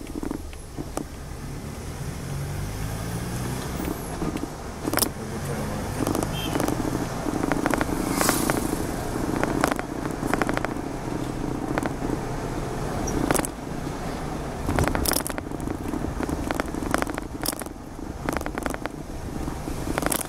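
Car engine and road rumble heard from inside the moving vehicle, the engine's pitch rising a couple of times in the first several seconds as it pulls away, with scattered clicks and rattles from the cabin.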